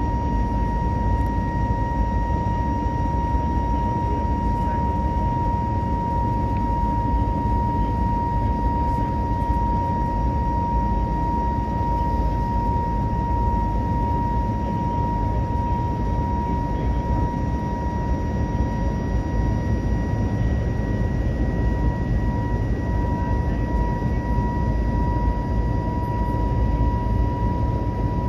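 Steady cabin noise inside an Airbus A321neo airliner in flight: a constant deep rush of engines and airflow with a steady high-pitched whine running through it.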